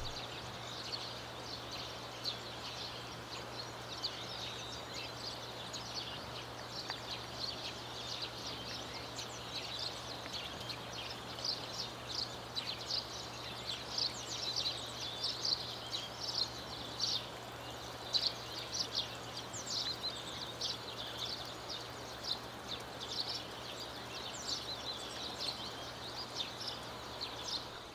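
Outdoor ambience of many small birds chirping, short quick calls overlapping throughout and growing denser after the first several seconds, over a steady background hiss and a faint low hum.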